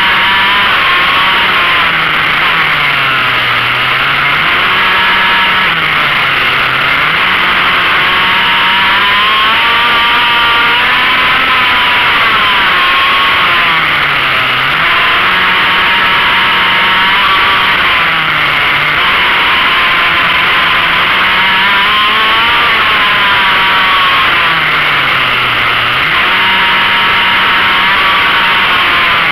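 Small racing engine heard onboard, held at high revs and dipping sharply then climbing again about five times as it brakes for corners and accelerates out. Steady wind rush on the microphone throughout.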